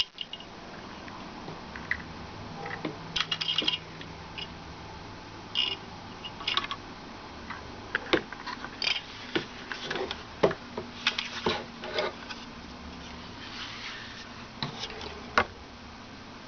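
Handling noises: irregular clicks, knocks and rustles of packaging and cooler parts being moved and set down, over a low steady hum.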